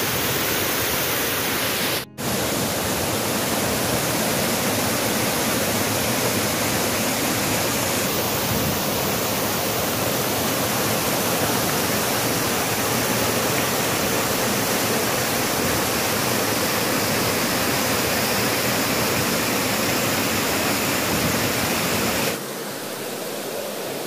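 Waterfall cascading over rocks: a steady, loud rush of falling water. It cuts out for an instant about two seconds in and turns to a softer rush near the end.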